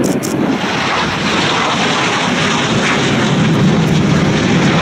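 Jet noise from a Chengdu J-10 fighter flying overhead: a loud, steady rushing rumble that grows slightly louder and deeper toward the end.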